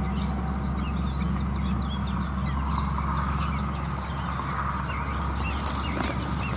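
Many short bird chirps over a steady low hum, with an insect trill joining about four and a half seconds in.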